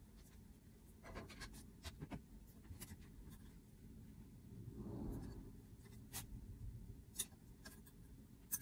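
Faint rustling and scratching of knit fabric being folded and handled on a tabletop while a hem is pinned, with small scattered clicks and a soft rustle about five seconds in.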